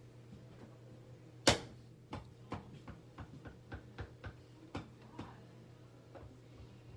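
A small hand tool clicking and scraping against an unfired clay ewer while cleaning up the seam line where the spout was attached: one sharp click about a second and a half in, then a run of lighter, irregular clicks, over a steady low hum.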